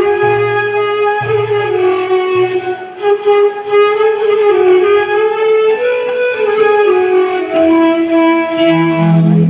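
Instrumental passage of a recorded Hindi film song: a melody moving from one held note to the next over string and guitar accompaniment, with a deeper held note coming in near the end.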